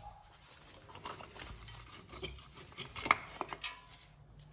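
Metal scraping and light clicks of brake parts and tools being handled on the front brake, with one sharper clack about three seconds in.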